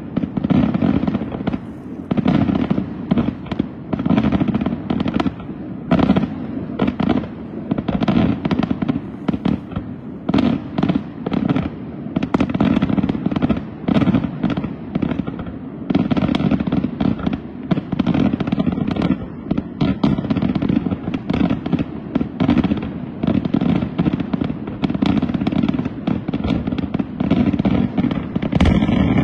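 Aerial fireworks display: a continuous barrage of shell bursts, several loud bangs a second with no pause.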